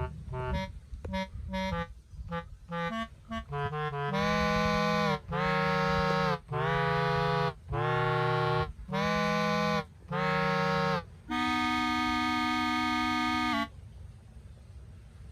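Background music, a reedy instrumental tune: quick short notes at first, then a run of six long held notes about a second each, and one longer held note that cuts off near the end.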